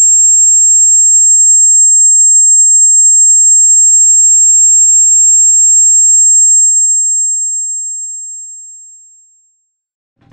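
A single loud, high-pitched steady tone, held for about six seconds and then fading away to silence. It is the ringing-ear sound effect that stands for hearing stunned by a blast.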